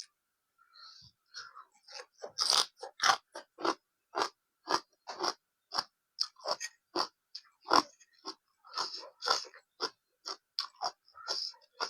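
A person chewing crunchy food close to the microphone, with repeated crisp crunches about two a second.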